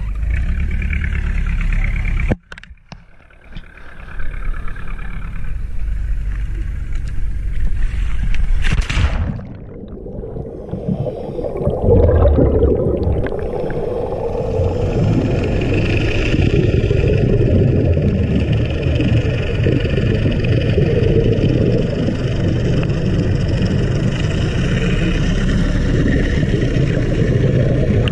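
Steady underwater rumble of a boat engine's drone mixed with the bubbling exhaust of a diver breathing from a compressor air hose. It briefly drops out just after two seconds and settles into an even rumble from about ten seconds in.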